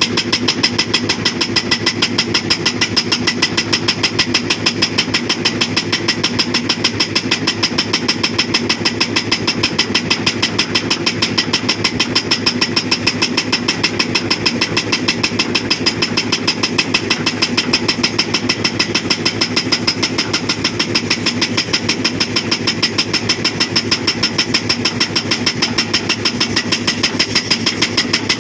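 Hydraulic breaker on a Hitachi Zaxis 240 excavator hammering rock in a fast, even rhythm of blows, with the excavator's engine running underneath.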